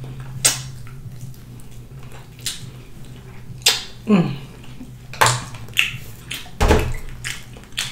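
A person eating rotisserie chicken off the bone, chewing with wet open-mouth smacks and lip clicks at irregular intervals, with a short hummed murmur about four seconds in. A steady low hum runs underneath.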